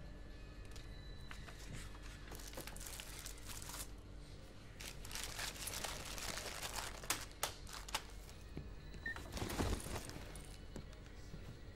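Paper rustling and crinkling as it is handled, in irregular bursts with a few sharp clicks partway through and the loudest rustle near the end.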